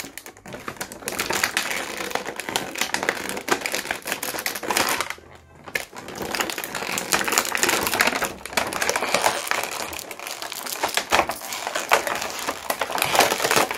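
Plastic toy packaging crinkling and crackling as it is torn open by hand, with a short pause about five seconds in.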